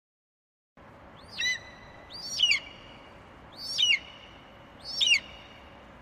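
Budgerigars chirping: four loud, sharp calls about a second apart, each sweeping up and then down in pitch.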